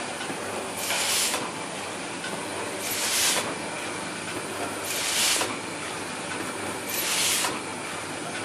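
Setmaster suction-feed collator running steadily, with a short burst of hissing air about every two seconds as it cycles.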